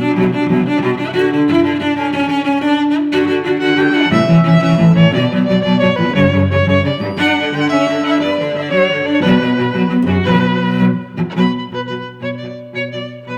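Background music: a string piece with violin and cello playing sustained notes.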